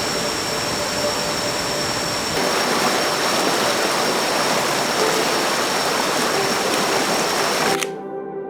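Rushing water of a waterfall and stream running over rocks, changing character about two seconds in and cutting off sharply near the end, where soft music begins.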